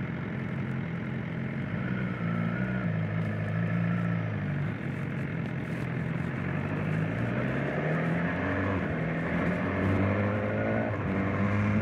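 Motorcycle engine heard from the rider's seat, running at low revs in slow traffic, then rising in pitch as the bike pulls away, with a brief dip in revs near the end before it climbs again.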